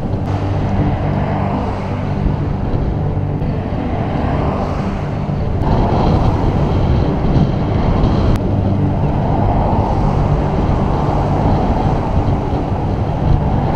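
Steady wind rumble on the microphone and road noise from a road bicycle moving at speed, with a low hum underneath. The noise shifts abruptly a little over five seconds in.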